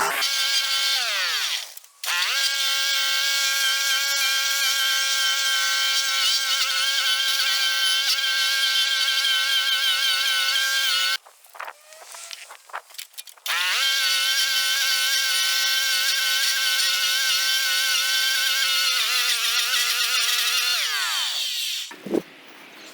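Stump grinder's petrol engine running at high revs with a steady whine. The pitch sags and recovers about two seconds in, the sound drops out for a couple of seconds midway, and near the end it winds down as the engine slows.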